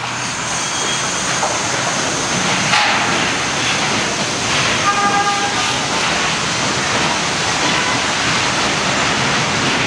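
Steady, loud rumble of a Nova Bus RTS-06 transit bus standing at the curb, blended with street traffic, with a brief high tone about five seconds in.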